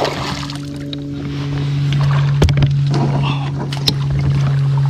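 A hooked bass splashing and thrashing at the water's surface beside a kayak as it is brought to the landing net: a loud splash at the start, then smaller splashes and a couple of sharp knocks. A steady low hum runs underneath throughout.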